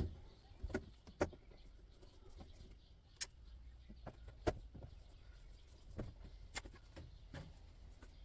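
Scattered small clicks and knocks, irregularly spaced, as the control knobs are pulled off the electric hob and handled, over a low steady hum.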